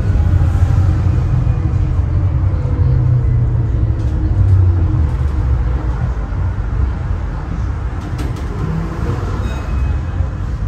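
Tram running on its rails, heard from inside the car: a steady low rumble with an electric motor whine that falls in pitch over the first few seconds, and a few short clicks about eight seconds in.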